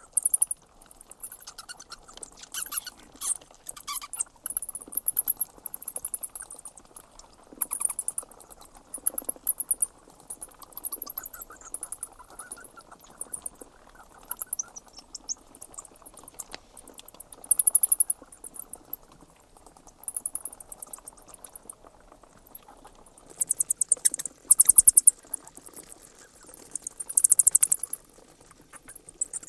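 Bats squeaking: clusters of rapid, very high-pitched chirps and clicks, coming every second or two.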